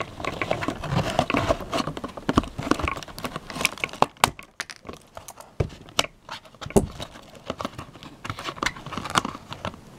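Plastic packaging bag crinkling and cardboard box being handled, with irregular crackles and clicks as the bag is pulled loose from the box.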